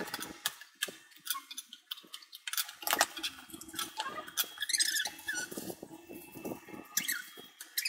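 Cardboard parcel being unpacked by hand: box flaps and paper and plastic packaging rustling, crinkling and scraping, with scattered clicks and a few short squeaks.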